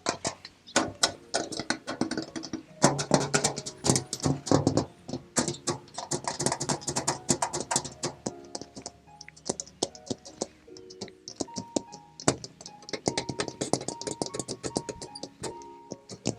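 Rapid fingertip and nail tapping on the metal body and parts of an excavator, several taps a second, with a short metallic ring after many of them.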